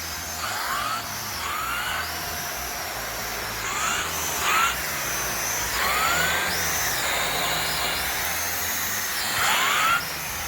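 Shark Rotator Lift-Away upright vacuum cleaner running, its high whine shifting up and down in pitch several times as it is pushed over the floor.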